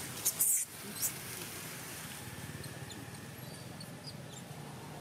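Baby monkey squeaking: a few short, high-pitched squeaks in the first second or so, over a steady low background hum.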